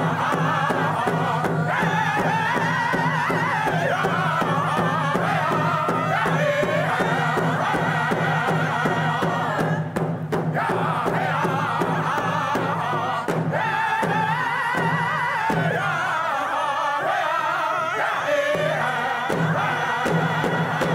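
A group of Native American singers chanting together over a steady beat of hand-held frame drums, with a steady low tone beneath. The song breaks off briefly twice near the middle.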